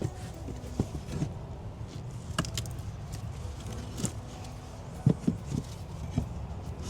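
Scattered light knocks and thumps, a handful of them close together about five seconds in, over a low steady hum.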